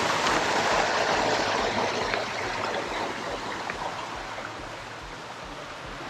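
Water rushing steadily down a small cascade over granite boulders into a rock pool, growing gradually quieter after about two seconds.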